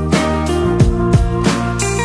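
Background music with a steady drum beat, about three hits a second, over held instrumental notes.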